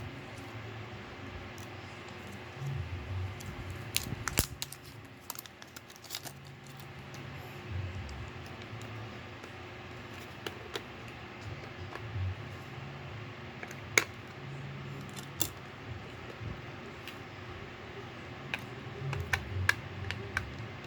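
Scattered sharp clicks and taps of something being handled, over a low steady hum, with the loudest click about fourteen seconds in.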